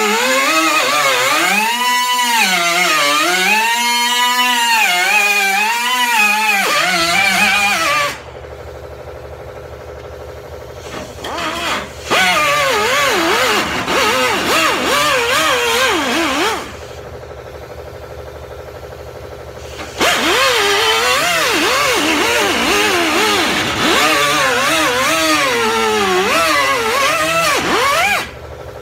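Pneumatic cut-off wheel cutting the sheet-steel lip off a welded-in quarter-panel patch, its whine wavering in pitch as it cuts. It runs in three bursts, about eight seconds, then four, then eight, with short pauses between.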